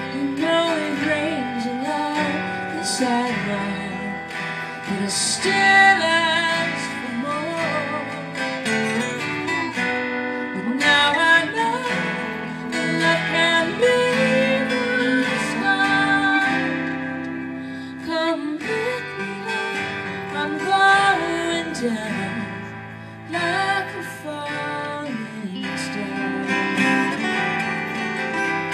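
Live acoustic song: a strummed acoustic guitar with a woman singing over it, recorded on a phone.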